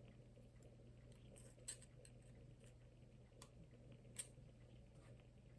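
Near silence with a few faint, sharp clicks of small tools on the phone's metal and plastic parts during teardown; the two clearest come about one and a half seconds in and about four seconds in.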